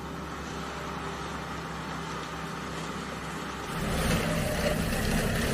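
Heavy farm machinery running steadily with a low engine drone. A little over halfway through it abruptly gets louder and rougher, with more rattling machine noise.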